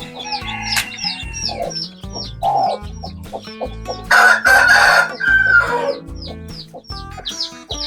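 A rooster crows once, loud and harsh, about four seconds in, with hens clucking around it. Background music with a steady beat runs underneath.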